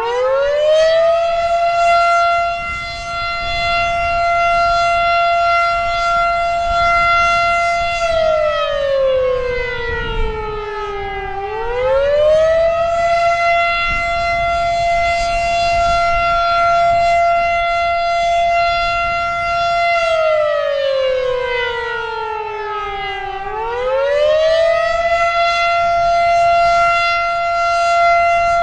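Federal Signal Model 7 outdoor warning siren sounding its attack signal. It winds up to a steady high pitch and holds it for about seven seconds, then winds down and back up again, twice.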